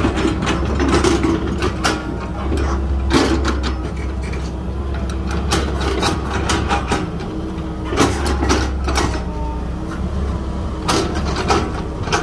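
Tracked excavator's diesel engine running steadily as it digs, with clusters of sharp clanks from the bucket and tracks every few seconds.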